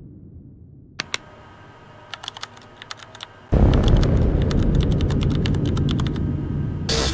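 A few scattered clicks, then about halfway in a loud, dense run of rapid clicks over a noisy rumble. A new sound cuts in just before the end.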